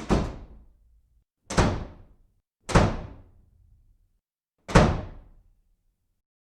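Four loud bangs, each dying away within about a second; the first three come about a second apart and the last after a longer gap.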